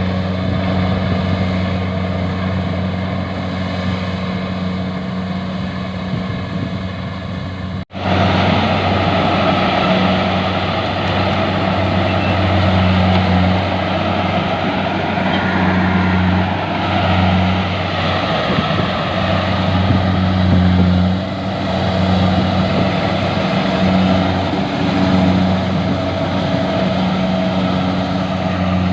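Engine of a rice harvesting machine running steadily under load, a continuous low hum with a noisy rattle above it. The sound cuts out for an instant about eight seconds in.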